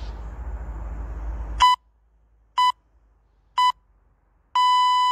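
Interval timer beeping: three short beeps about a second apart, then one longer beep, a countdown marking the end of a timed exercise interval. A steady low background rumble stops at the first beep.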